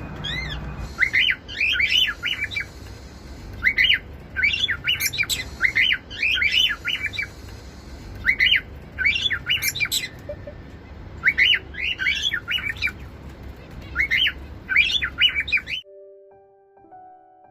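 A cockatiel calling in quick runs of high, rising-and-falling chirps, about seven bursts about a second long with short pauses between them, which cut off suddenly near the end. A few soft piano notes follow.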